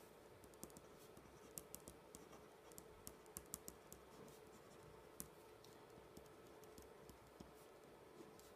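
Faint scratching and light ticks of a ballpoint pen writing on lined paper, the ticks coming irregularly.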